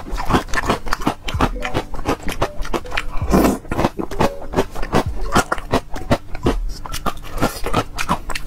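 Close-miked chewing of yogurt mixed with crunchy cereal pieces and freeze-dried jackfruit: a dense, irregular run of crunches and wet mouth clicks.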